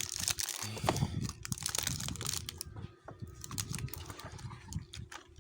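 Plastic packaging crinkling and rustling as it is handled and pulled off a Rubik's cube, with scattered short clicks and taps.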